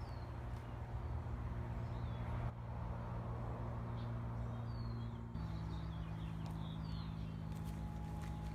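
Outdoor ambience: a steady low hum that shifts pitch twice, with small birds chirping now and then and a few faint clicks.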